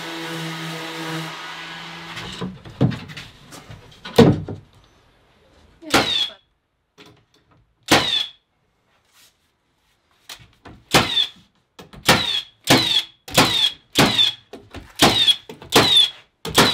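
A small motor hums steadily and stops about two seconds in. Then come sharp knocks, typical of hammer blows driving nails into wood: a few spaced a second or two apart, a pause, then a steady run of about two a second near the end.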